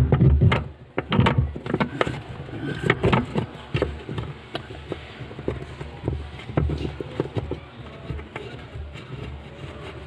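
Plastic clicks and knocks as a washing machine's pulsator is set onto the gearbox shaft and turned by hand. The clicks come thick in the first few seconds, then thin out to a few scattered ones.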